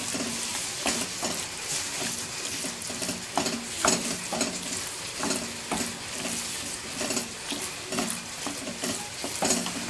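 Spoon stirring ash gourd pickle in a hot pan, with irregular scrapes and taps against the pan over a steady sizzle from the oil and freshly added vinegar.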